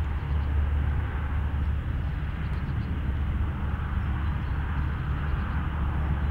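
Steam locomotive approaching at a distance, heard as a steady low rumble with a hiss over it and no distinct exhaust beats.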